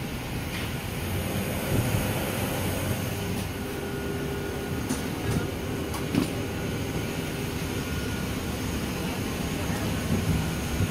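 Steady low rumble and hum of walking down a jet bridge into an airliner's door, with a few light clicks and footfalls scattered through it.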